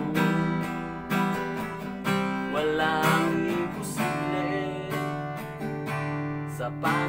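Acoustic guitar strummed about once a second in a slow, steady rhythm, with a man's voice singing over it at moments.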